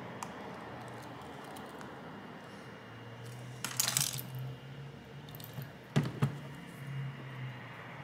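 Small hard parts of a disassembled smartphone clicking and rattling as they are handled, over a faint steady hum: a short scraping rattle about four seconds in, then two sharp clicks a quarter of a second apart about six seconds in.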